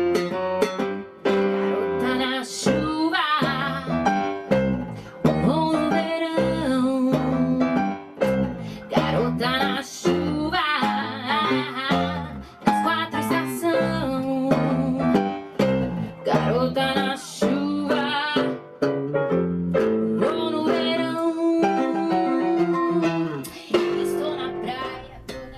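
A woman singing into a microphone over an instrumental accompaniment, her held notes wavering with vibrato; the music fades down near the end.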